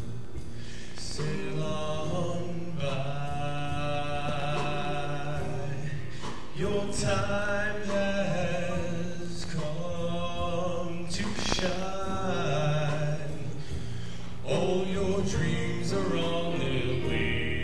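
A teenage boy sings a slow solo into a handheld microphone over backing music, holding long notes with a wavering pitch.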